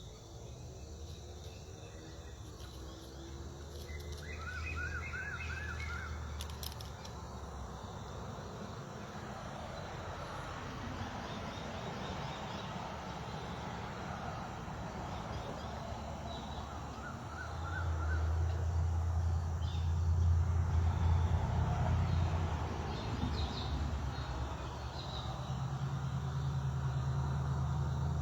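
Outdoor ambience: a low rumble like wind on the microphone, swelling louder in the second half, with a small bird giving short chirping trills twice.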